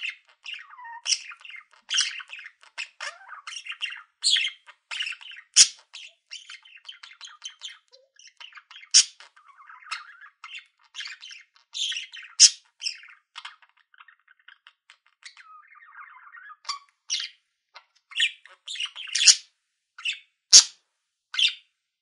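Budgerigar warbling: a fast, busy chatter of chirps, squeaks and trills, broken by short gaps and sharp, loud squawks every second or two.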